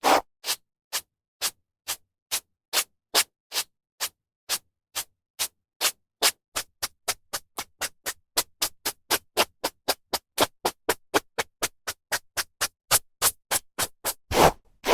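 Hairbrush strokes through hair, a run of short brushing swishes. They come about two a second at first, quicken to about three a second, and a longer, louder stroke comes near the end.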